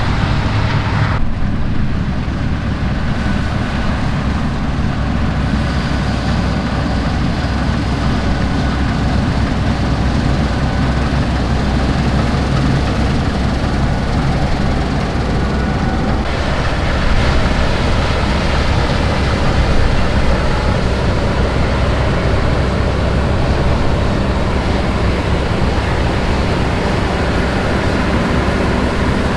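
Combine harvester running steadily at work, a heavy low engine drone under a broad mechanical rush. The sound changes abruptly about a second in and again around sixteen seconds in.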